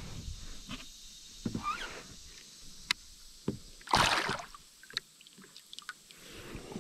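A short splash in the water beside a kayak as a smallmouth bass is released, about four seconds in, with a few light knocks before it.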